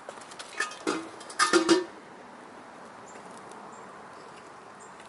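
Metal clinks and clanks from a small kettle charcoal grill being handled, a handful of sharp knocks with brief ringing in the first two seconds, then only a faint steady background.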